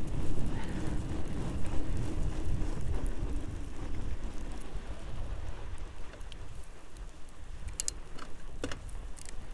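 Outleap Hercules fatbike's wide tyres rolling over packed snow, with wind buffeting the handlebar camera's microphone into a steady low rumble. A few sharp clicks come near the end.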